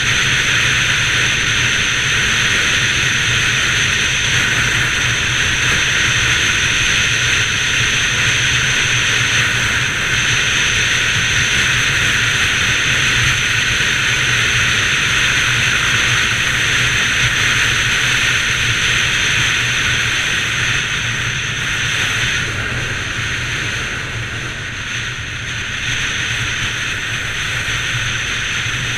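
Bajaj Pulsar 200 NS single-cylinder engine running steadily under a loud rush of wind over the microphone as the motorcycle rides at speed; the sound eases off a little about three quarters of the way through, then builds again.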